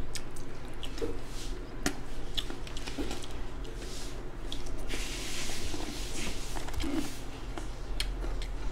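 Close-miked eating sounds: chewing, lip smacks and wet clicks as spicy chicken curry and vegetables are eaten by hand, with a short hiss about five seconds in.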